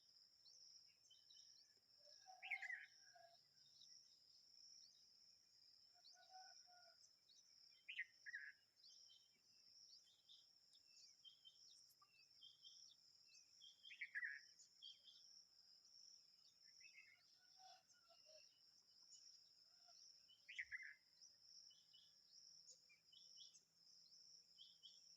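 Bulbuls calling faintly: short, sharp notes that slide downward, every few seconds, with softer chirps between. A steady high insect trill runs underneath.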